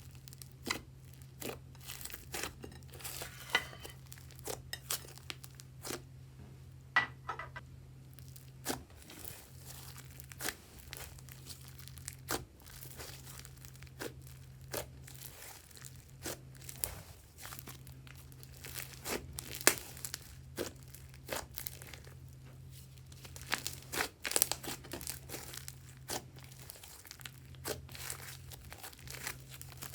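Butter slime being kneaded and pressed by hand, giving irregular sticky clicks and pops, several a second, over a steady low hum.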